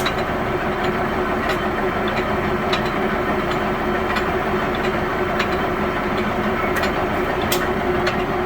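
Heyligenstaedt 400A/30 heavy engine lathe running under power with its feed engaged: a steady hum from the drive and gearbox with two held low tones, and scattered light ticks throughout.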